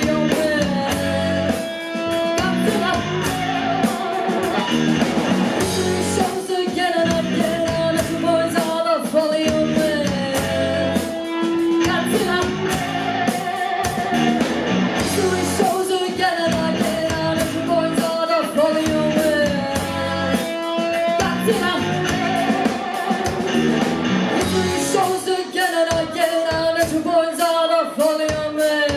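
A live rock band playing a song: a woman singing lead over electric guitars and a drum kit.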